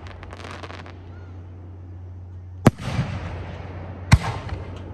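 Aerial fireworks bursting: crackling at first, then two sharp bangs about a second and a half apart, each trailed by crackle. A steady low hum runs underneath.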